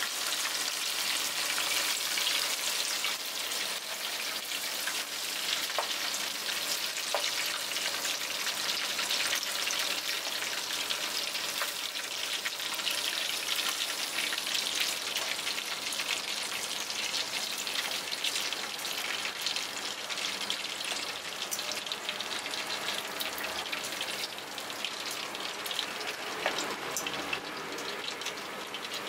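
Small Japanese freshwater crabs (sawagani) deep-frying in hot oil: a dense, steady crackle and sizzle, with a few sharp clicks.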